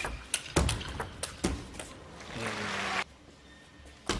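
Table tennis ball being struck and bouncing on the table in a rally, a few sharp clicks, followed by a short swell of crowd noise in the arena that cuts off abruptly about three seconds in.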